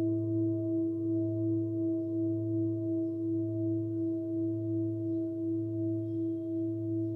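Himalayan singing bowl ringing in a long, steady, sustained tone with a deep fundamental and several higher overtones, its loudness wavering in a slow pulse.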